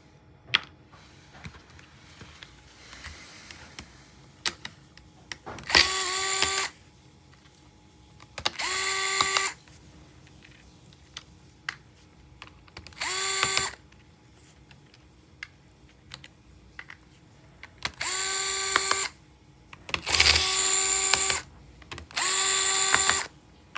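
Small electric screwdriver running in six short bursts of about a second each, each spinning up quickly to a steady whine, backing out laptop screws. Faint clicks and taps come between the bursts.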